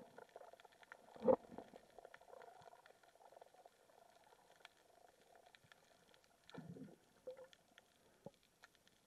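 Underwater sound picked up through an action camera's waterproof housing: a steady scatter of faint clicks and crackles, one sharp knock about a second in, and a short low rumble near the end.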